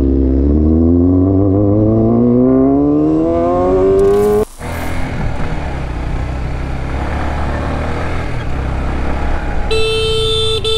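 Honda CBR600RR inline-four engine accelerating, its pitch climbing steadily for about four seconds, then an abrupt switch to another motorcycle running along a street with road noise. Near the end a vehicle horn sounds with a steady tone.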